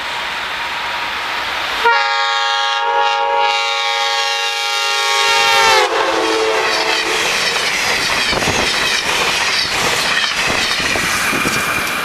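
A passing Northeast Regional train led by an AEM7 electric locomotive blasting its K5LA multi-chime air horn: a long chord starts about two seconds in, drops in pitch as the locomotive passes, and stops soon after. The train then rushes by at speed, its wheels clacking rhythmically over the rail joints.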